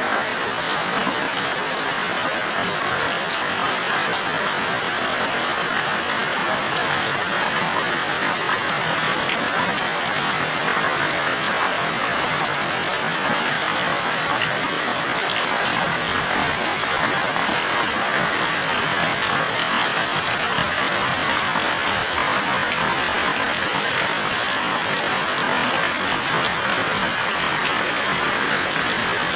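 Heavy rain pouring down in a steady downpour, an even hiss that does not let up.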